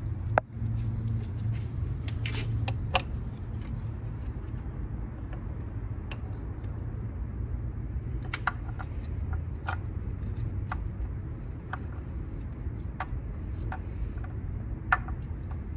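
Scattered light clicks and taps of gloved hands working a timing belt onto the toothed cam gears and pulleys of a Nissan 300ZX V6, with a sharper click just under half a second in and another near the end, over a steady low hum.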